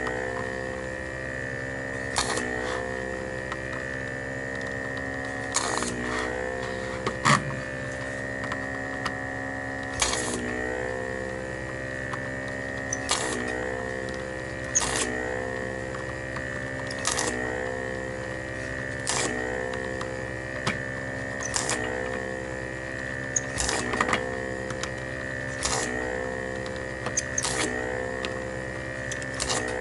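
Vacuum pump of a homemade desoldering iron running with a steady hum. About every two seconds comes a short hiss of suction as solder is pulled from a switch joint, and the pump's pitch dips briefly under the load each time.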